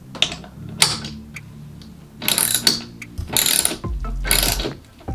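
Tool noise from fixing a TV wall mount to the wall: four short, rough, clicking bursts, like a ratchet or drill turning the mount's bolts in.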